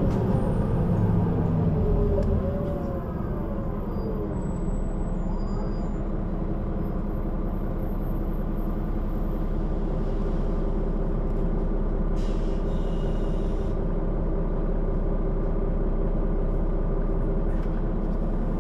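Solaris Urbino 12 III city bus with its diesel engine running steadily at idle, settling down over the first few seconds. A brief hiss of compressed air comes about twelve seconds in.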